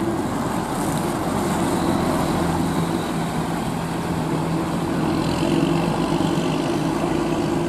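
Sinar Jaya intercity coach's diesel engine running steadily as the bus pulls slowly past and turns away at a bend, a low, even hum with tyre and road noise.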